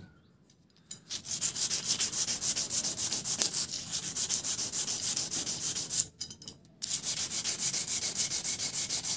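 Coarse 40-grit sandpaper rubbed quickly back and forth along a steel sharpening rod, several strokes a second, scouring rust off the metal. It pauses briefly about six seconds in, then carries on.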